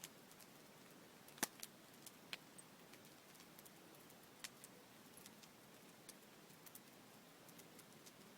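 Large wood bonfire crackling: irregular sharp pops and snaps over a faint steady hiss, the loudest snap about a second and a half in.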